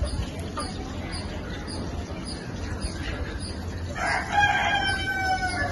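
A rooster crowing once: one drawn-out, slightly falling call of about a second and a half, starting about four seconds in.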